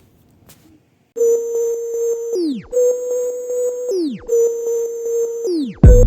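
Electronic outro music: after about a second of quiet, a held synthesizer tone plays in short phrases, each ending in a falling sweep. A heavy bass and drum beat comes in near the end.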